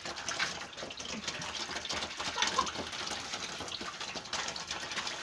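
Water gushing and splashing in a plastic drum, with small knocks and clicks scattered through it.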